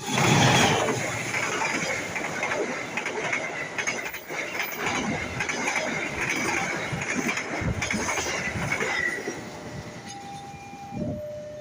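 A train running past with rail rumble and wheel clatter, a thin high squeal riding over it. The train noise dies away about nine seconds in. Near the end a level-crossing warning alarm starts, alternating two tones.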